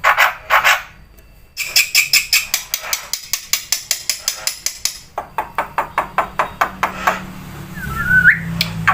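Jalak putih (black-winged myna) calling. After a short lull about a second in, it gives a fast run of short, harsh repeated notes at about six a second, then a clear whistle that slides up near the end.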